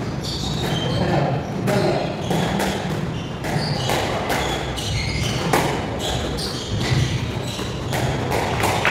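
Squash rally: the rubber ball is struck by rackets and smacks the walls in a run of sharp echoing hits, with shoes squeaking on the wooden court floor.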